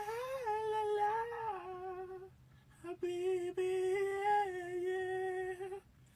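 A person humming two long held notes with a short break between them. The first note wavers and drops slightly in pitch; the second is steadier.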